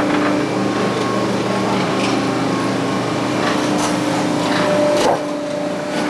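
Steady drone of a track-renewal machine for replacing railroad ties, its engine and machinery running at constant speed, with a few sharp knocks scattered through it.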